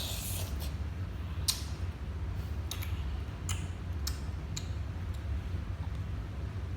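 Five or so sharp clicks and rustles from paper and tape being handled, spread over a few seconds, over a steady low hum.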